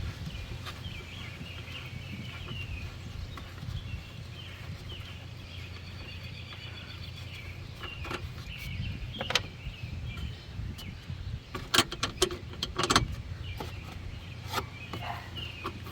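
A few sharp clinks and knocks of hand tools on metal in the engine bay, most of them bunched about three quarters of the way through, over a steady low rumble.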